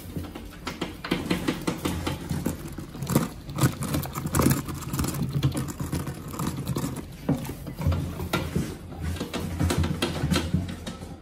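Many rats scrambling and scratching over each other, a dense irregular patter of claws on wire mesh and glass.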